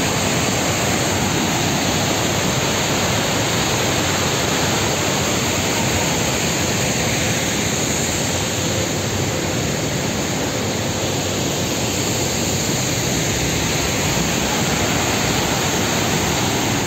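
Swollen mountain stream in flood, muddy water rushing over rocks and pouring across a road: a steady, loud rush of water.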